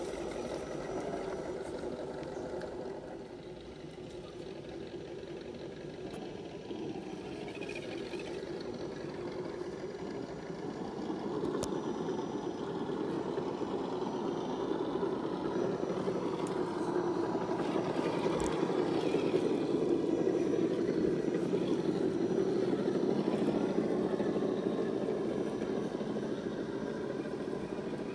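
Scale RC crawler truck on an Axial SCX10 chassis running steadily as it crawls over leaves, mud and shallow creek water. The sound grows louder about halfway through.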